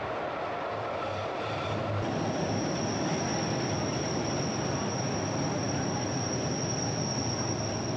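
Glacier Express train running, its wheels rumbling on the track. About two seconds in, a steady high-pitched wheel squeal sets in and holds as the train rounds a curve.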